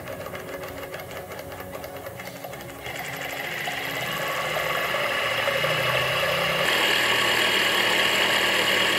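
Small thermal lag engine (a glass-cylinder hot-air engine) running fast at about 2900 rpm, with a rapid, even clatter from its piston and flywheel. About three seconds in it grows louder and turns into a steady high whirring whine.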